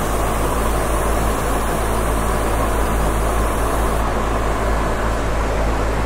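Steady drone of a spray booth's exhaust fan, with the hiss of an airbrush spraying paint on top that stops about four seconds in.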